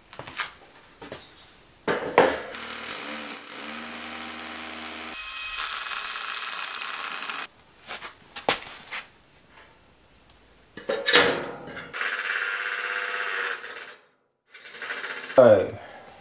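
Cordless drill running on light steel C-section framing in two long runs, with clicks and knocks of metal parts being handled between them.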